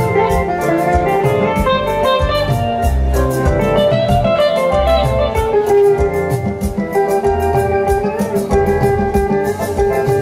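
Live band music: an electric guitar plays a melodic single-note lead over bass and a steady drum beat with cymbals.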